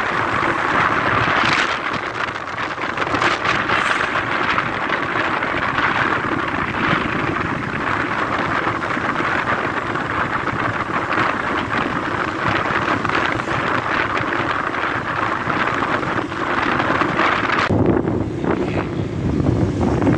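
Steady wind rushing over the microphone with road and engine noise from a moving vehicle. Near the end the hissing upper part fades and a lower rumble comes forward.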